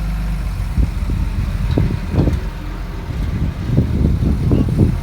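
Bulldozer's diesel engine running, with a run of irregular clanks and knocks from about a second in.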